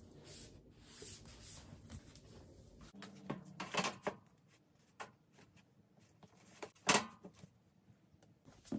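Paperback books being handled and set down onto the top tier of a rolling book cart: soft shuffling and light knocks, with two louder knocks, one about four seconds in and one about seven.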